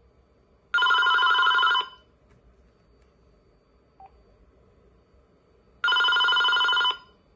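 AT&T E5640 cordless phone's electronic ringer ringing twice, each ring a warbling burst of about a second, about five seconds apart. The ringer sounds distorted, a fault the owner has also heard on another unit of this model.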